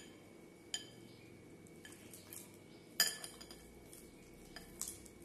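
A few light clinks of a hand knocking against a glass bowl while banana is broken into milk by hand, the loudest about three seconds in.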